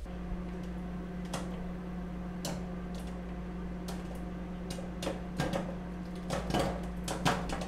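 Microwave oven running: a steady hum, with scattered clicks and crackles that come thicker and louder near the end.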